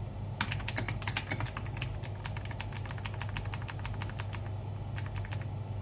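Typing on a Machenike K600 mechanical keyboard with clicky switches: a fast, steady run of sharp key clicks that stops briefly near the end, then starts again.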